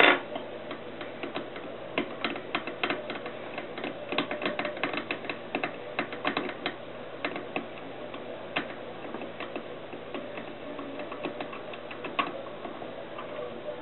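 Light metallic clicking and ticking from a hand tool working a small engine's connecting rod bolt loose, with quick runs of clicks for a few seconds and then scattered single clicks.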